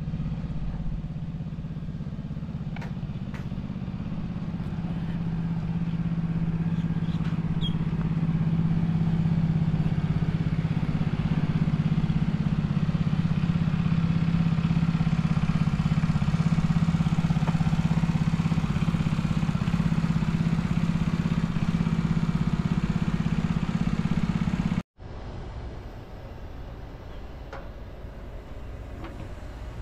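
A steady low mechanical drone that slowly grows a little louder. It stops abruptly after about 25 seconds, leaving a much quieter outdoor background.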